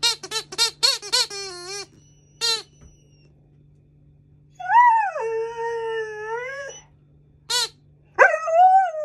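A rubber alligator squeaky toy squeezed quickly about seven times in a row, then once more. An Alaskan malamute puppy answers with two long howls that fall in pitch, with one more squeak between them.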